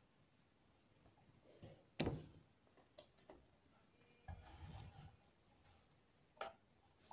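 Faint handling sounds: a few sharp knocks and clicks, the loudest about two seconds in and another near the end, with a brief spell of rubbing past the middle.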